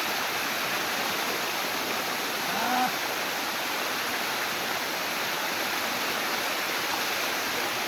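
Waterfall: a steady rush of falling water. A faint, brief voice is heard a little under three seconds in.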